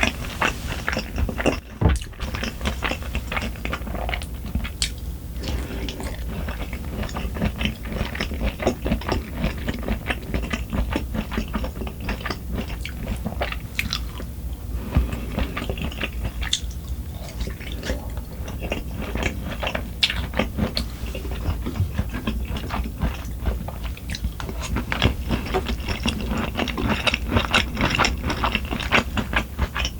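Close-miked eating: continuous chewing with many small crunchy bites, from a meal of braised kimchi and rice, over a steady low hum.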